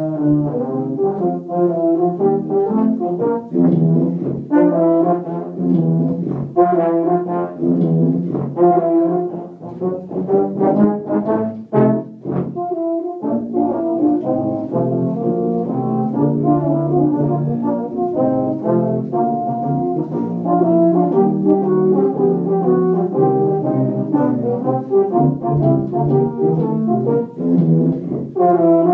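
Tuba quartet playing together: low brass in several parts moving in rhythm, with a brief drop in the sound about twelve seconds in before the playing resumes.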